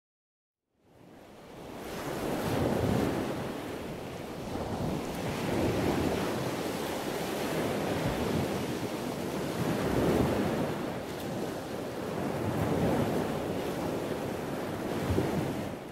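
Ocean surf: waves breaking and washing in with some wind, swelling and ebbing every three or four seconds. It fades in about a second in.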